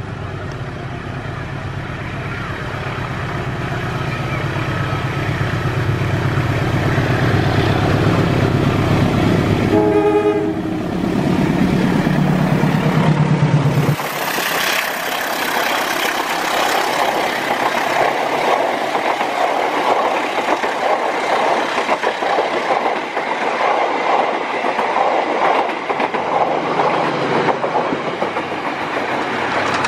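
Diesel-electric locomotive hauling passenger coaches drawing closer, its engine drone growing louder, with a short horn blast about ten seconds in. About halfway through the drone cuts off suddenly and gives way to the rush and rhythmic wheel clatter of a locomotive and coaches passing close by on the rails.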